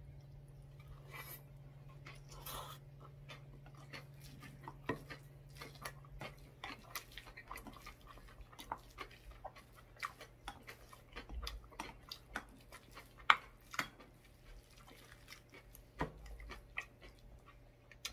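Close-miked chewing of a big mouthful of bean-sprout rice with shredded radish salad: wet mouth clicks and soft crunches coming irregularly, several a second. A spoon now and then knocks or scrapes the ceramic bowl, the sharpest tick about thirteen seconds in.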